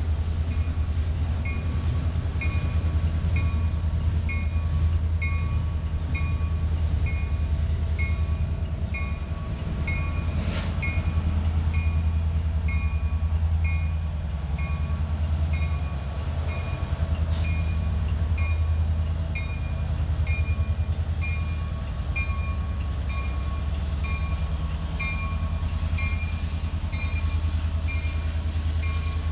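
Ferromex train running by with a steady low diesel rumble. Over it, a high ding repeats evenly about every two-thirds of a second.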